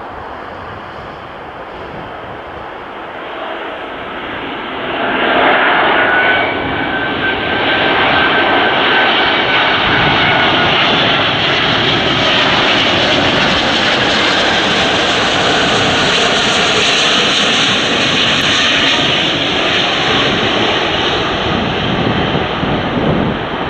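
British Airways Airbus A350's Rolls-Royce Trent XWB turbofans on final approach. The jet noise swells sharply about five seconds in as the airliner comes close, with a high engine whine that sinks slightly in pitch, then stays loud and steady.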